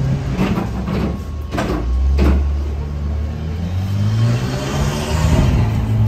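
Street traffic close by: a motor vehicle's engine running with a steady low hum, then revving up about four seconds in as the vehicle pulls past.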